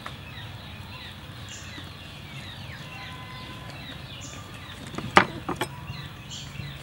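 A cleaver knocking against a fish on a wooden cutting board: one sharp knock about five seconds in, then two lighter ones in quick succession. Birds chirp in the background with short falling calls.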